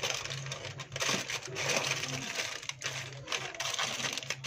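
Aluminium foil crinkling and crackling in quick irregular bursts as it is folded and pressed closed by hand around a food packet.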